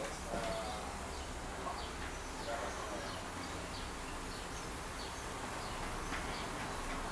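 Small birds chirping repeatedly in short, high calls over a steady low background noise, with faint distant voices.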